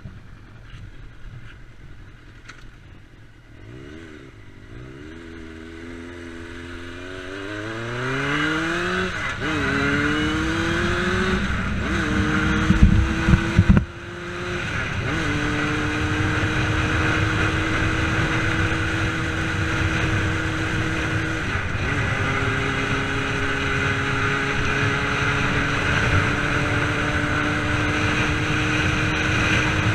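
1990 Honda CBR600F's inline-four engine pulling away and accelerating, its pitch climbing in each gear and dropping back at several upshifts, then running at a steady cruise. Wind rushes over the microphone throughout, with a loud rumbling gust near the middle.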